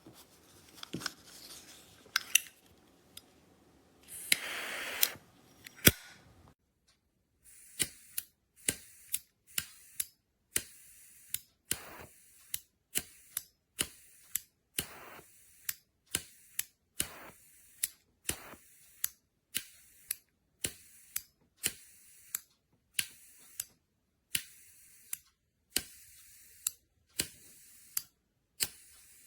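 Butane lighter insert being worked by hand: a few scattered clicks and about a second of hissing, then a steady run of clicks, a little more than one a second, each followed by a brief hiss.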